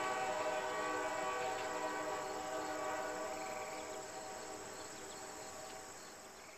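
Diesel locomotive's multi-chime air horn held in one long, steady chord, heard from a distance and fading out.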